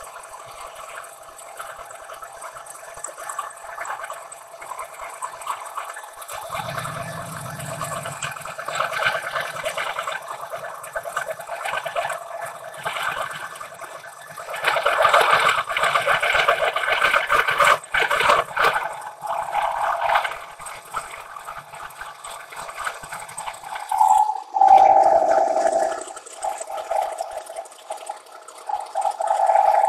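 Insert face mill on a converted metal planer cutting along a steel bar: a steady cutting hum with a hiss of flying chips. It grows louder for a few seconds in the middle, and the tone shifts suddenly near the end.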